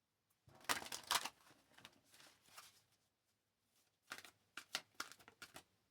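Tarot cards being shuffled and handled: a burst of rustling about half a second in, softer rustling after it, then a run of quick sharp snaps of cards near the end.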